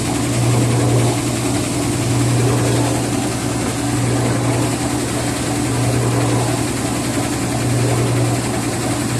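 Whirlpool washing machine running with a loud, steady hum over a broad whirring noise. The uploader puts the loud noise and shaking down to the spider underneath having come off its track.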